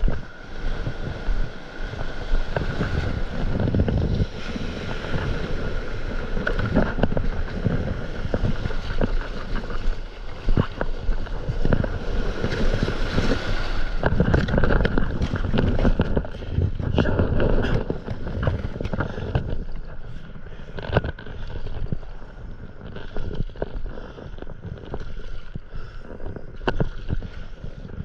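Shallow surf washing and splashing around a stand-up paddleboard as it is pushed off and paddled out, with paddle strokes in the water and wind buffeting the microphone. The splashing is heavy for the first two-thirds and eases to quieter paddling on calm water near the end.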